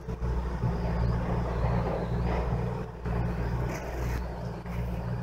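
Steady low engine rumble of a car on the street outside.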